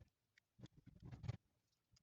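Faint, fast-forwarded handling noise from reassembling a metal knitting machine bed and doing up its machine screws: quick clicks and short clattering bursts, the loudest cluster about a second in.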